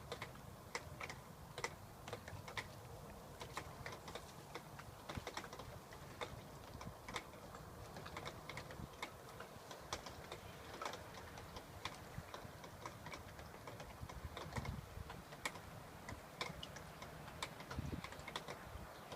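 Light, irregular clicking and tapping, several clicks a second, over a faint low background with a couple of low thumps near the end.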